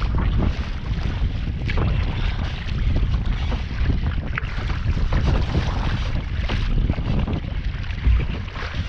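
Wind buffeting the microphone over the repeated splash of a double-bladed kayak paddle dipping into choppy water, with a short low thump near the end.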